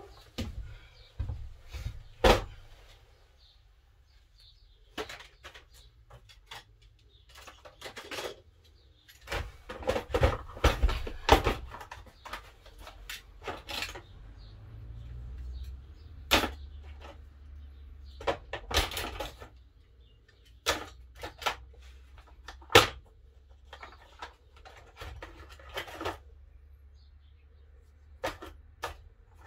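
Metal hand tools, pliers among them, clicking, knocking and rattling as they are handled and sorted in an open plastic toolbox. The sounds come as irregular sharp knocks and short clattering runs with gaps between.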